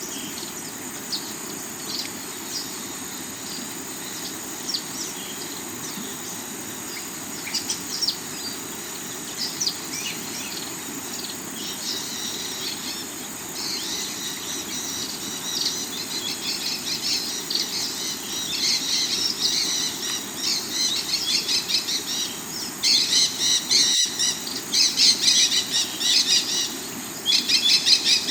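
A rocky river running with a steady rush of water, under many small birds chirping. The chirping is sparse at first and grows into rapid, busy calls in the second half. There is a single sharp click near the end.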